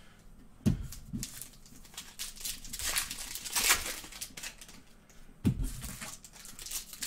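Foil trading-card pack wrappers crinkling and cards rustling as they are handled, in short scattered bursts, with a soft thump under a second in and another past the middle.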